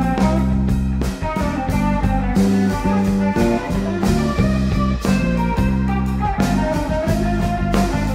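Instrumental blues-rock played live by a power trio: electric guitar playing melodic lines over electric bass and a Pearl drum kit keeping a steady beat.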